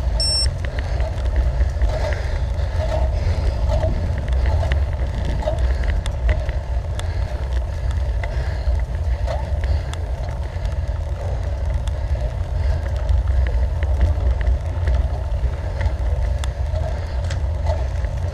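Wind buffeting the microphone of a camera riding along on a road bicycle at speed, a steady low rumble with road noise and scattered small clicks. A very short high beep sounds just after the start.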